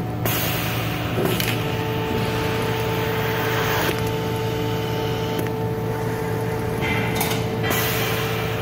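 Creative Manufacturing die-cut sheet feeder running: a steady machine hum with hissing bursts of air from its pneumatic suction-cup pickers, the longest lasting a couple of seconds. A steady whine sets in about a second and a half in.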